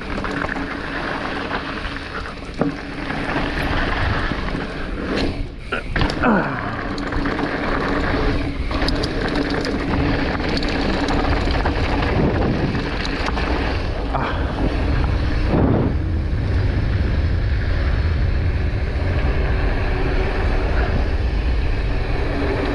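Downhill mountain bike ride: wind rushing over the camera's microphone while the tyres roll over a dirt trail, with a few sharp knocks and rattles about five to six seconds in.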